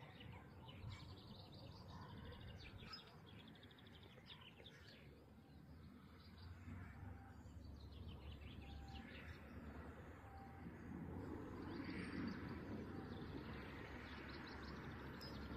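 Faint songbirds trilling and chirping at intervals, over quiet open-air background noise, with a soft rustle growing louder in the last few seconds.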